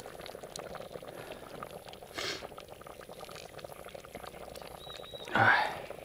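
Thick soup bubbling in a cauldron over a campfire, with a steady patter of small pops. A brief louder vocal sound about five seconds in.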